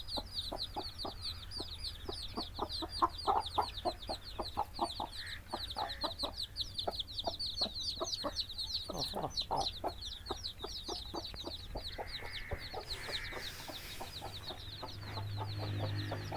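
A hen clucking steadily among her brood of chicks, which peep rapidly and without a break over her low, repeated clucks.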